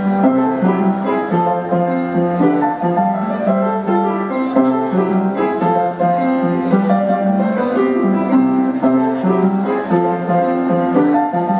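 Piano played live: a recurring low note under shifting chords and a moving melody.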